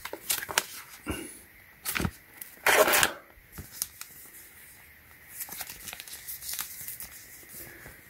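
Crinkling and rustling of a plastic-and-foil pouch of keyboard switches and its paper packaging being handled, in short scattered bursts with a louder rustle about three seconds in.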